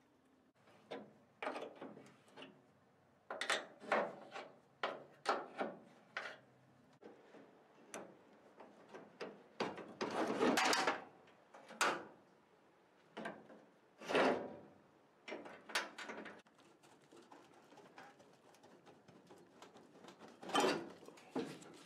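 Old wooden body framing of a 1929 Ford Model A being worked loose from the sheet-metal body: irregular knocks, creaks and scrapes of wood against metal, the longest scrape about ten seconds in.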